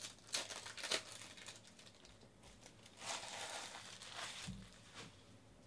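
Foil wrapper of a baseball card pack crinkling as it is handled and torn open: sharp crackles in the first second, then a longer crinkling rustle about three seconds in, ending with a light thump.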